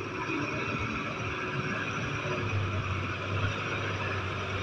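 Heavy diesel engines of a tracked excavator and a loaded dump truck running steadily, as a low drone that firms up about halfway through.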